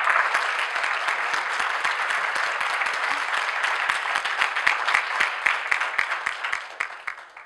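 Audience applauding, the dense clapping thinning to separate claps and fading out near the end.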